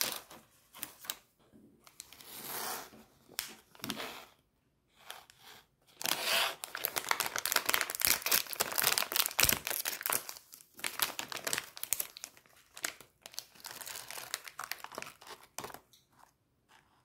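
Plastic snack wrappers crinkling in the hands, with a plastic bag being torn open. Scattered crackles at first, then a long stretch of dense, louder crinkling and tearing from about six seconds in.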